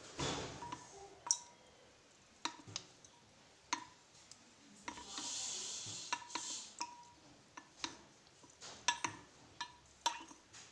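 A utensil clinking and scraping against a stainless steel bowl while stretched mozzarella is pressed in cold water: about a dozen sharp clinks, each with a short metallic ring, with water splashing at the start and sloshing about halfway through.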